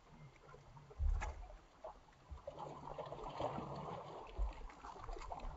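Faint lapping of small waves in shallow sea water, with low gusts of wind buffeting the microphone, the strongest about a second in.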